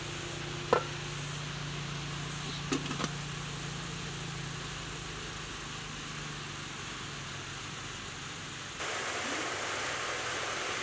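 Steady low background hum with a sharp click about a second in and two lighter clicks around three seconds. Near the end the background changes abruptly to a slightly louder, brighter, even hiss.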